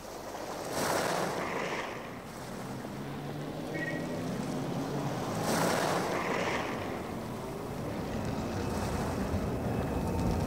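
Two long swells of rushing, wave-like noise, one about a second in and one around five and a half seconds in, over a low steady drone.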